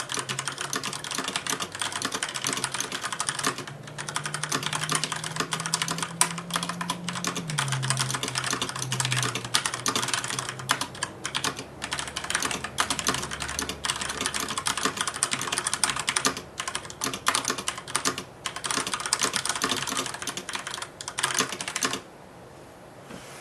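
Fast, continuous typing on a Filco Majestouch 2 mechanical keyboard with tactile Cherry MX Brown switches, a steady stream of key clacks. The typing stops shortly before the end.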